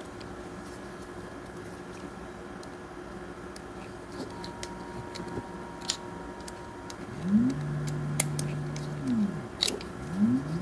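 Small hand screwdriver driving small screws through a 3D-printed headlight bezel into a finned aluminium heat sink, heard as faint scattered ticks and scrapes over a steady hum. About seven seconds in, a louder low hum-like sound rises in pitch, holds for about two seconds, then falls. It comes again near the end.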